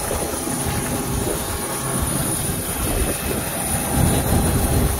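Aircraft engine noise on an airport apron: a steady, uneven low rumble with a thin, constant high whine over it.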